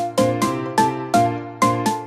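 Background music: a quick melody of sharply struck notes that each fade away, several a second, over a low bass.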